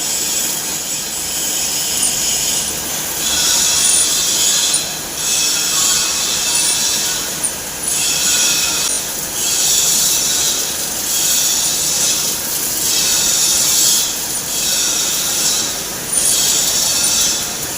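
CNC lathe tool cutting a spinning aluminium pulley: a loud, steady, high-pitched hiss of metal cutting that briefly eases off every two seconds or so.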